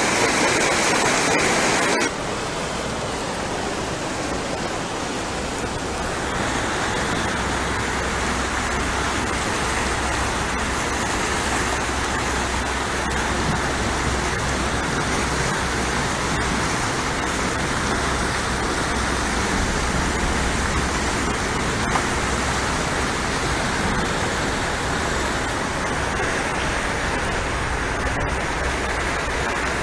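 Muddy flash-flood water rushing down a wadi channel: a steady, loud rush of turbulent water. The sound shifts abruptly about two seconds in and again about six seconds in.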